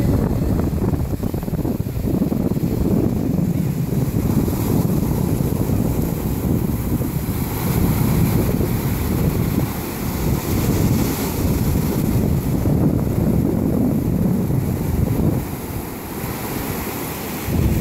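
Ocean surf breaking and washing ashore, with wind rumbling on the microphone.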